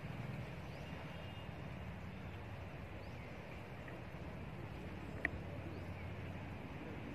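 Steady low outdoor rumble with a hiss over it, and a single sharp click about five seconds in.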